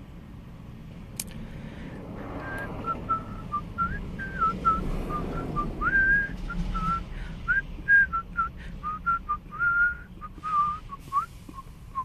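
A person whistling a tune: short notes with slides between them, starting about two seconds in.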